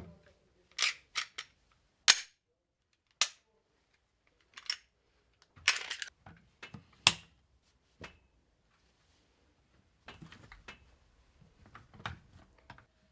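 Metal parts of an SVD Dragunov rifle being handled and fitted together: a series of sharp metallic clicks and clacks at uneven intervals, the loudest about two seconds in, followed by lighter rattling clicks near the end.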